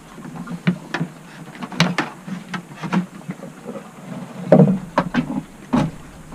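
Irregular clicks and knocks of hard plastic being handled as a soldering iron is settled in its stand and plugged in. The loudest knock comes about four and a half seconds in, and another comes near the end.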